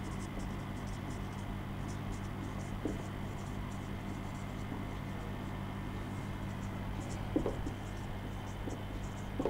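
Marker pen writing on a whiteboard: a run of short, irregular high scratchy strokes over a steady low hum.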